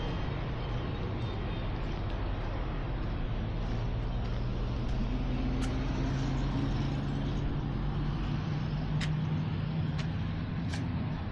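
Road traffic noise with a motor vehicle's engine humming past, loudest about halfway through and then fading. A few sharp clicks in the second half.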